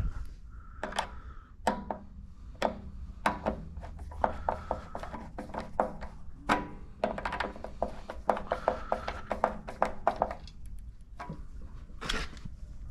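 Screwdriver tightening the wire terminal screws on an electric water heater element: a run of small metallic clicks and taps with a short ring, scattered at first and coming quickly from about four to ten seconds in.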